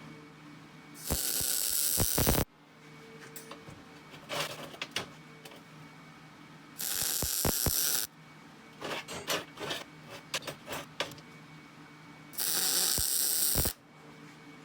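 MIG welder laying three short tack welds on steel, each arc starting abruptly and crackling for about a second and a half before cutting off. Light clicks and knocks of metal being handled fall between the welds.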